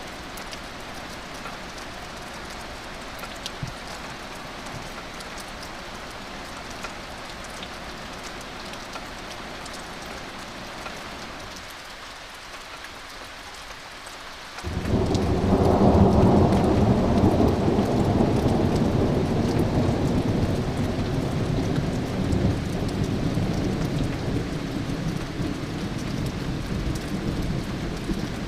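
Steady rain with scattered drops. About halfway through, thunder breaks in suddenly as a loud, deep rumble and rolls on, slowly fading.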